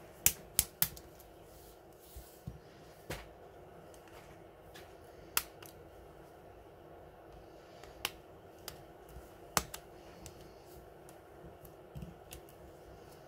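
Samsung Galaxy A50's plastic housing clicking sharply as fingers press it together along the edge, about a dozen irregular clicks, a quick run of three at the start. The clicks are the housing's clips snapping into place during reassembly.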